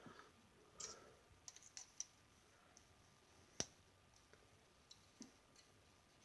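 Faint clicking of plastic model-kit parts being handled and plugged together, with one sharp snap about three and a half seconds in.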